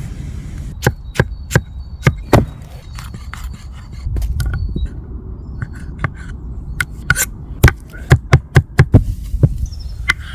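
Knife chopping on a wooden cutting board: a series of sharp knocks, spaced out at first, then a quicker run of strokes late on.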